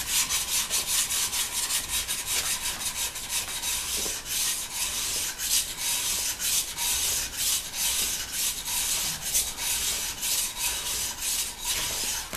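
A diamond sharpening stone scraped back and forth over the rusted cast-iron body of a hand plane in quick rasping strokes, about three a second, grinding the rust off the metal.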